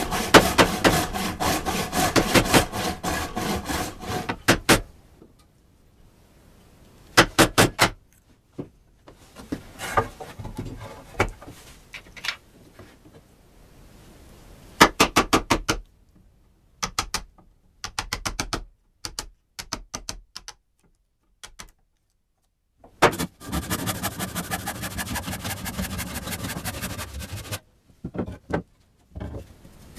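Saw cutting through wood in rapid, even strokes, in two long spells with shorter bursts and pauses between.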